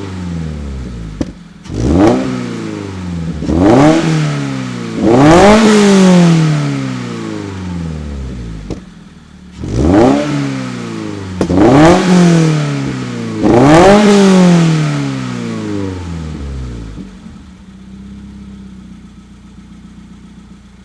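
Exhaust of a 2022 Subaru BRZ's 2.4-litre flat-four, through an ARK GRiP cat-back exhaust and resonated test pipe. The engine is revved in a string of about seven sharp blips, the revs falling back after each. It settles to a steady idle near the end.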